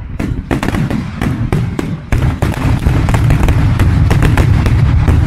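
Fireworks display in its closing barrage: many aerial shell bursts and crackling reports in quick succession over a continuous low rumble, with a brief lull about two seconds in. The footage is sped up to double speed.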